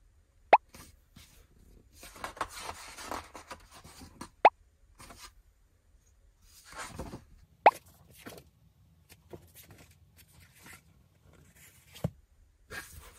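Pages of a large photo book being turned by hand: paper rustling and sliding, broken by three short, sharp pops a few seconds apart. A soft thump near the end as the book is closed.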